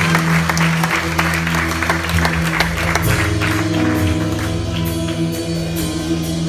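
A congregation applauding over a live worship band playing soft sustained chords. The clapping is dense for about the first three seconds, then thins out while the music carries on.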